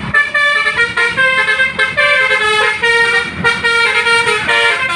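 Tour bus's Basuri telolet horn playing a quick tune of short, stepping notes, with several tones sounding together.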